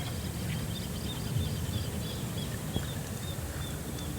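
A small animal calling outdoors: a steady run of short, high chirps, about three a second, over a low steady rumble.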